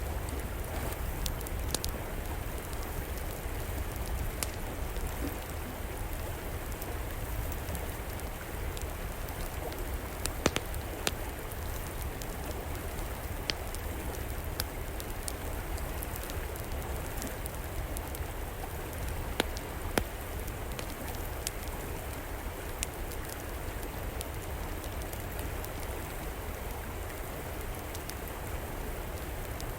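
River water flowing in a steady rush, with a wood fire crackling over it in scattered sharp pops, a few louder snaps around the middle.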